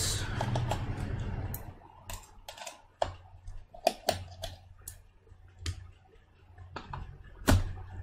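Scattered light clicks and taps of screws, a screwdriver and small internal parts being handled while a Mac Mini is taken apart. The clicks come one at a time at irregular spacing, with a low handling rumble in the first second or so.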